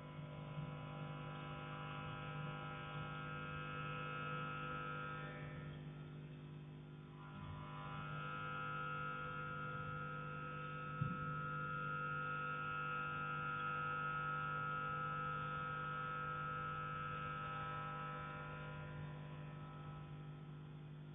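A steady hum with many layered tones, thinning briefly about six to seven seconds in. About eleven seconds in comes a single short, dull knock on the heating pipe, one of the repeated knocks that come every 40 to 60 seconds.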